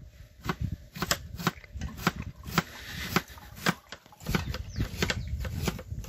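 Irregular sharp taps and knocks of a knife on a cutting board at a table, several a second. A low rumble joins about four seconds in.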